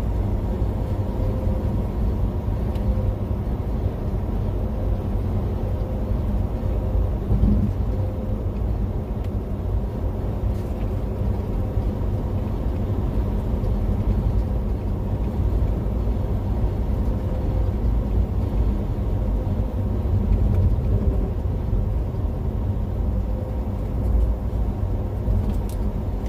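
Steady low drone of a vehicle's engine and tyres heard from inside the cab while driving at highway speed.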